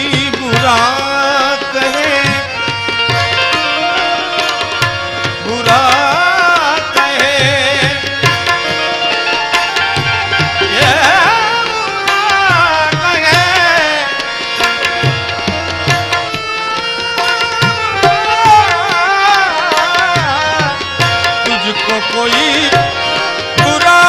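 Live bhajan music: tabla strokes under a harmonium, with a man's voice singing long, wavering notes without clear words.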